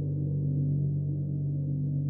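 Gong ringing on in a steady, sustained low drone of several held tones, with no new strike.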